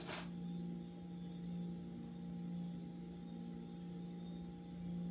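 A steady low hum, with a short swish near the start as a Felicia Leatherwood detangling brush is pulled through a section of hair, and a couple of fainter swishes later.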